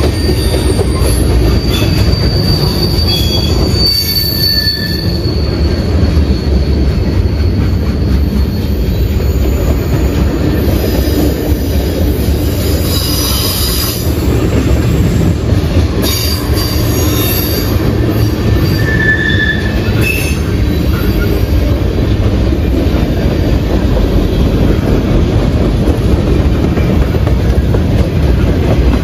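CSX freight train cars rolling past close by: a steady loud rumble of wheels on rail, with short high wheel squeals now and then, the longest in the first few seconds.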